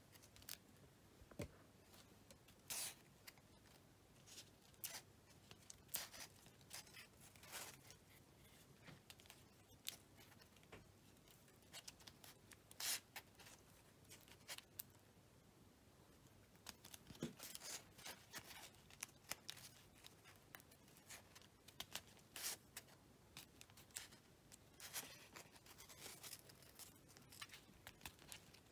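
Faint, scattered rustling and crinkling with light ticks: tape being wrapped and pressed by hand around a foil-covered wire root.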